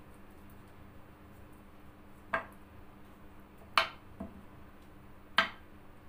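A spoon clinking against a ceramic bowl while sauce is scraped out of it: three sharp clinks about a second and a half apart, with a softer knock between the last two, over a faint steady hum.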